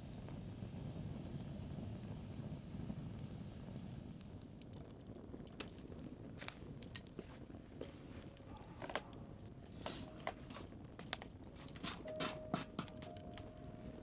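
Wood fire being lit and catching: a low rushing at first, then sharp crackles and pops that come more and more often as the kindling takes.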